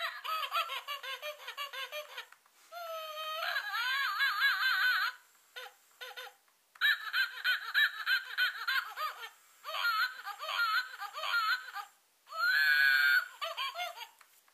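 Talking baby monkey plush toy giggling and laughing in a recorded baby voice through its small built-in speaker. It comes in about five bursts with short pauses between them, and it sounds thin, with no bass.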